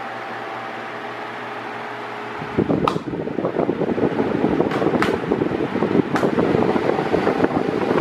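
Mondial Maxi Power 40 cm 140 W oscillating table fan running, working normally after being reassembled: a steady motor hum with a few fixed tones. About two and a half seconds in, as the oscillating head swings round to face the front, it turns into a much louder, fluttering rush of air. A few sharp ticks come through the rushing air.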